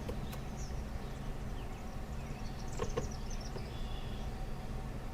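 A steady low hum, with soft clicks in pairs at the start and again about three seconds in, and faint high bird chirps.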